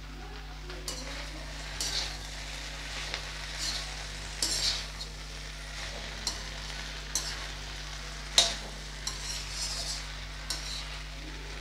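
Chopped okra with onion frying in a metal kadhai, sizzling steadily while a slotted metal spatula stirs it with repeated scrapes against the pan. One sharp metal knock, the loudest sound, comes about eight seconds in.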